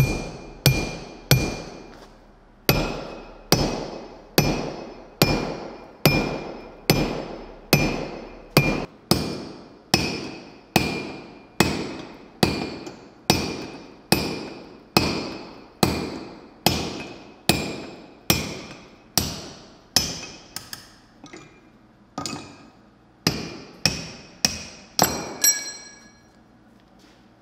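Sledgehammer blows on a hot punch driven into a glowing steel hammer-head blank on an anvil, punching the eye. The blows come in a steady beat of about one and a half a second, each with a short metallic ring, after a brief pause about two seconds in. Later they become fewer and irregular.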